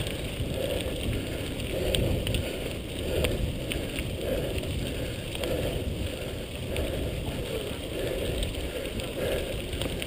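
Mountain bike rolling along a gravel track: a steady rumble of tyres on loose gravel and air noise, with a few short sharp clicks and rattles from the bike.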